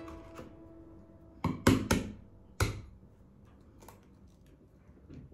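Kitchenware knocking: four sharp knocks in just over a second, starting about a second and a half in, with a few fainter taps later.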